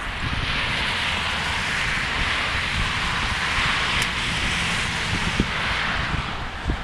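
Traffic on a nearby highway: a vehicle passing, its tyre hiss swelling just after the start and fading near the end, with wind rumbling on the microphone.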